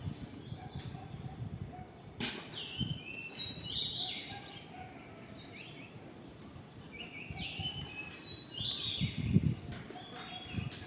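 A songbird singing two short phrases of quick, stepped, high notes, about three seconds in and again near eight seconds. Under it are low rustling and knocking sounds and one sharp click just after two seconds.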